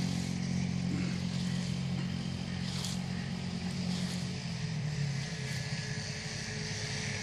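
An engine running steadily with a low hum that shifts slightly a little past halfway, with a few faint swishes of a long-handled scythe cutting green fodder.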